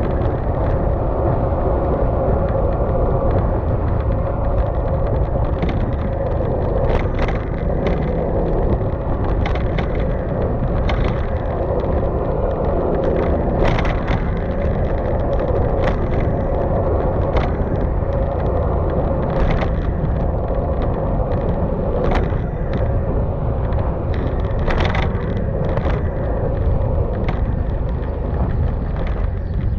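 Yamaha XMAX scooter's single-cylinder engine running at a steady cruising pace, with tyre and road noise and a scattering of short clicks.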